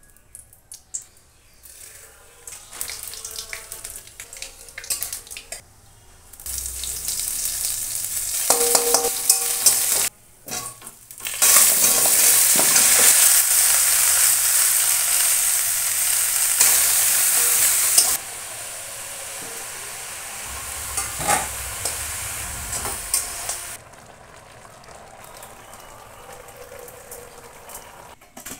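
Chopped vegetables sizzling in hot oil in an aluminium karai while a metal spatula stirs and scrapes them. The sizzle comes in several stretches that start and stop abruptly, loudest in the middle, with scattered clicks of the spatula on the pan.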